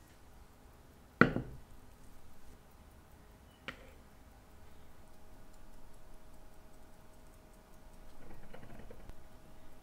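A watch hand-setting press and a watch movement in its plastic holder being handled on a work mat: a sharp knock about a second in, a lighter click a couple of seconds later, then soft handling sounds near the end.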